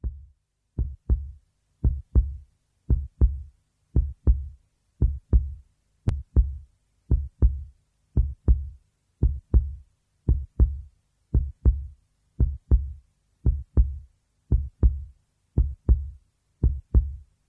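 Heartbeat sound effect: a steady lub-dub, pairs of low thumps coming about once a second.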